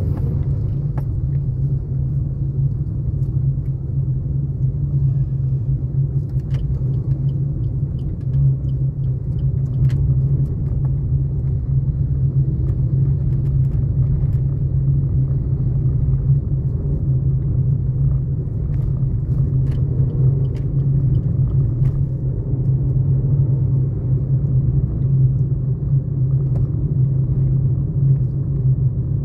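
Steady low rumble of a vehicle driving along a city road, engine and tyre noise from the moving vehicle, with a few faint ticks now and then.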